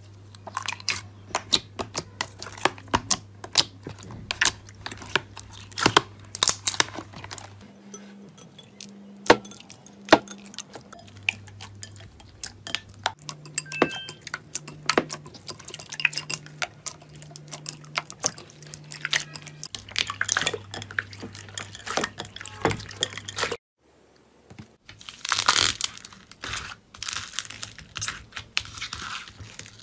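Slime being squeezed and pressed by hand, giving dense, irregular crackling and popping clicks over soft background music with low held notes. Near the end the sound cuts out briefly, then comes back as a louder crunching, tearing stretch.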